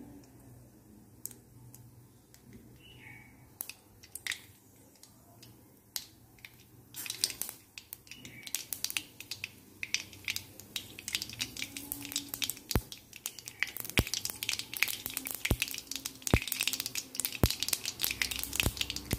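Mustard seeds spluttering in hot oil in a kadhai for tempering. A few scattered pops come first, then from about seven seconds in a dense, busy crackle of popping seeds that grows thicker toward the end.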